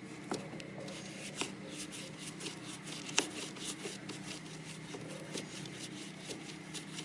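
A screwdriver turning the screw of a metal hose clamp to tighten it onto a coolant hose, with a run of irregular small clicks and scrapes of metal on metal, one sharper click about three seconds in.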